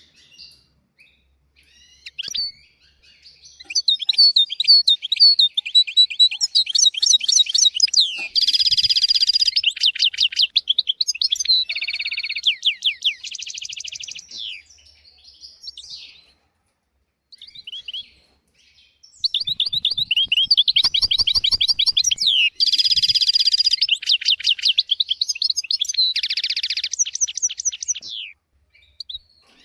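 European goldfinch singing: two long bouts of rapid twittering trills, chirps and buzzy notes, with a short pause between them about halfway through.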